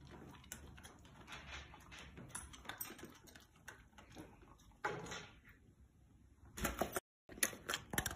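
A golden retriever giving two short vocal sounds, about five seconds in and again near the end, with faint clicks and rustling in between.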